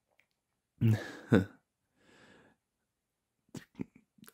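A man's short non-verbal vocal sound about a second in, two quick pitched bursts like a startled laugh or gasp. It is followed by a faint breath and, near the end, a few quick soft mouth clicks.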